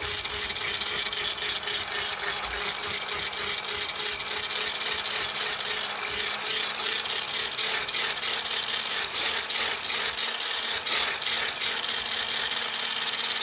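Handheld electric blender with a whisk attachment running steadily while it whips thick body cream in a stainless steel pot: a constant motor hum under a dense, busy whirring of the whisk through the cream.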